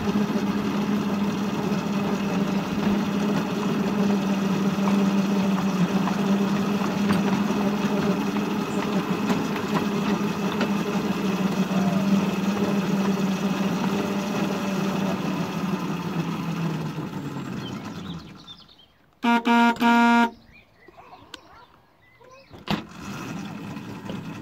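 Miniature railway shunter's engine running steadily with a low hum, then winding down and dying away near the end. Two short horn toots follow, and a single click after them.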